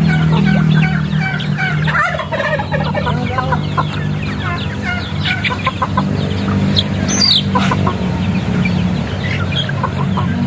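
A flock of young chickens clucking and chirping in short, overlapping calls as they crowd in to feed, with one higher rising call a little past halfway. A steady low hum runs underneath.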